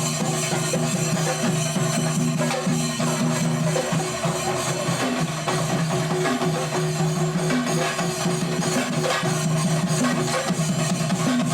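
Kerala sinkarimelam drum ensemble playing: chenda drums beaten in fast, dense rolls with ilathalam cymbals, over a sustained low tone that drops out briefly about four seconds in.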